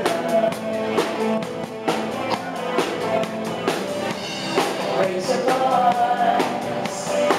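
Live band playing a song, drums keeping a steady beat, with a woman singing into a microphone over it.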